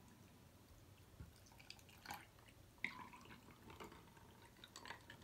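Vanilla milk poured from a small bottle over ice cubes in a tall glass: a faint trickle of liquid with a few scattered small clicks from the ice.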